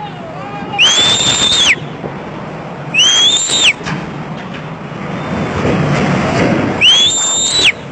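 Three loud, high-pitched whistle blasts, each under a second long, about two and four seconds apart. Each one slides up, holds steady and then drops away.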